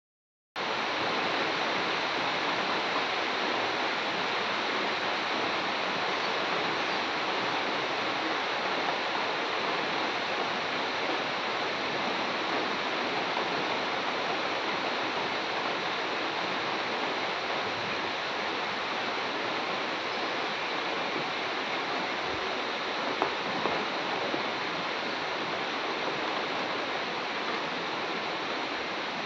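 Steady rain falling on coconut palms and dense trees, an even, unbroken hiss of rainfall.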